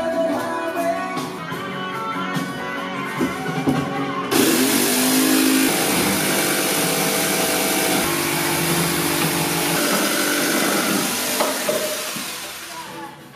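Acoustic guitar music, joined about four seconds in by a corded Ryobi jigsaw cutting through a wooden board, a dense steady buzzing noise over the music that fades out near the end.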